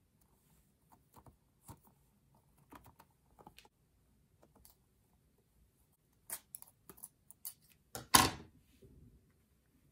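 Hands handling a rubbery squishy stress toy filled with water beads: scattered small clicks and rubbing sounds, with one louder short sound about eight seconds in.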